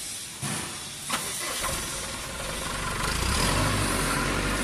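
Two short knocks, then a motor or engine starts about a second and a half in and keeps running with a steady low hum that grows a little louder.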